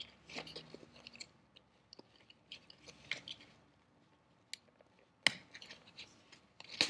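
Kydex sheath and its MOLLE clips being taken off a pack and handled: scattered light clicks and rubbing, with two sharp clicks, one about five seconds in and one near the end.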